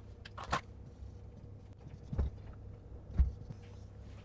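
Whiteboard markers being handled and used on a whiteboard: a few separate clicks and taps, the firmest a little after two and three seconds in, over a faint low hum.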